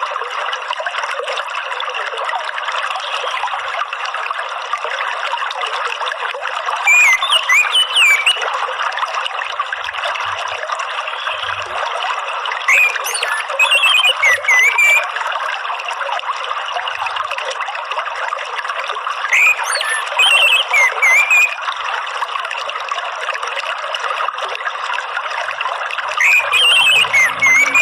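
Steady trickling, running water, with an orange-headed thrush's short twittering song phrases breaking in four times, about every six seconds and louder than the water.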